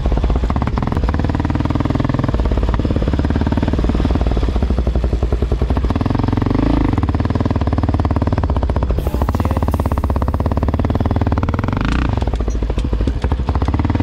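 Off-road vehicle engine running under way, its pitch shifting with the throttle, with a brief surge near the end.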